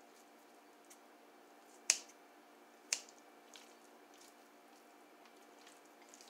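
Betty Crocker kitchen shears snipping through cooked chicken: two sharp snips about a second apart, around two and three seconds in, with a few fainter clicks, over a steady faint hum.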